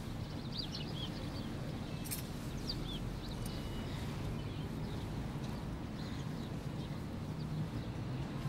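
Outdoor ambience: a steady low rumble with a few short bird chirps scattered through it, and a single brief click about two seconds in.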